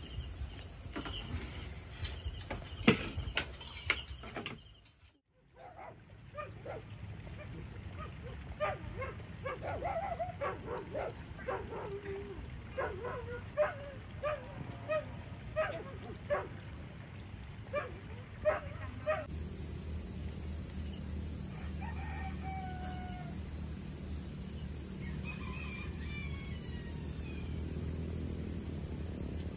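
A steady chorus of crickets and other insects, with chickens calling now and then over it. In the first few seconds, sharp clinks of plates and utensils.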